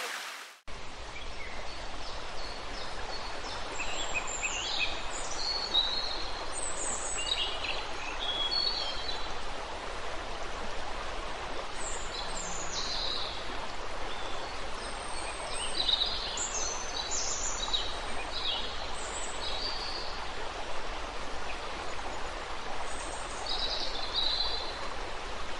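Shallow rocky stream running steadily, with small birds chirping now and then throughout.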